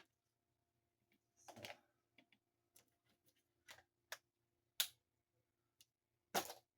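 Scattered light clicks and a short rustle from hands working at a package and the small plastic pieces inside, with a louder click near the end.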